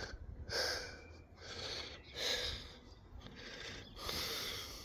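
A man breathing heavily close to the microphone, about three long noisy breaths roughly two seconds apart, out of breath from the work.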